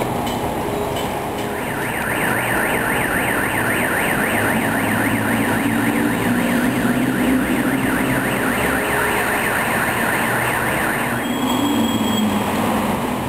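An electronic siren warbling rapidly up and down, several times a second, starting about two seconds in and stopping about two seconds before the end, over steady background noise.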